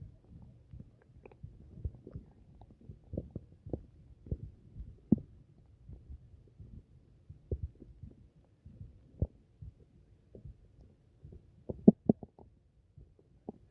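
Upset stomach rumbling: low, irregular gurgles with sharp pops at uneven intervals and a cluster of louder pops near the end.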